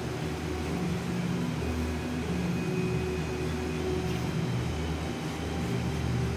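Steady low hum of a large indoor hall, the kind of even drone that ventilation or air-handling plant makes, with a few faint steady tones over it.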